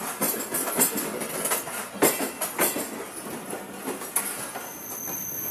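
Passenger train running on its rails, heard from aboard a coach: irregular clacks and rattles of the wheels over the track. A high, steady wheel squeal starts near the end.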